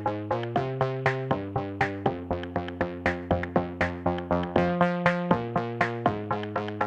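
Electronic background music: a quick pulse of synthesizer notes, about four or five a second, over held chords.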